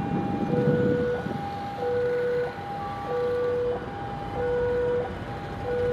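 Electronic two-tone warning alarm, most likely a railway level crossing alarm, sounding steadily: a low tone and a higher tone alternate about every two-thirds of a second. A brief low rumble is heard in the first second.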